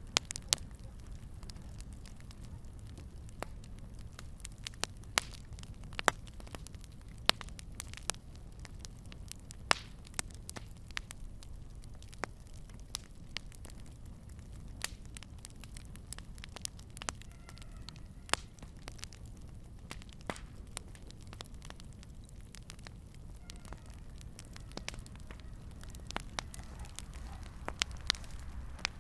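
Fire burning in a fireplace: a low steady rumble with sharp, irregular crackles and pops every second or so.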